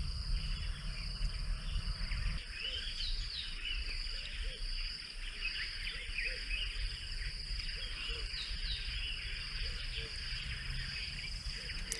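Steady, high-pitched insect chorus in the bush, with a few short bird chirps. Underneath is a low rumble that is stronger for the first couple of seconds.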